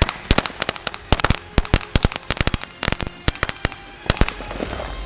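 Consumer fireworks going off in a rapid, irregular string of sharp pops and bangs, several a second, that stops a little over four seconds in.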